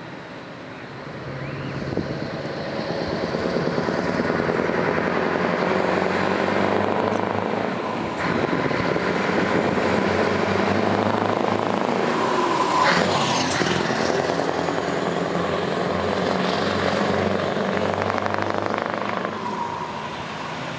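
Scania V8 480 truck driving up and past. The engine note grows louder over the first few seconds, is loudest as the truck passes close a little past halfway, then eases off as it pulls away.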